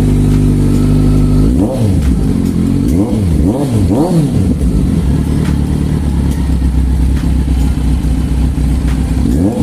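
Kawasaki Z1000's liquid-cooled inline-four engine idling, blipped by the throttle in four quick revs in the first few seconds and once more near the end, each rising and falling back to idle.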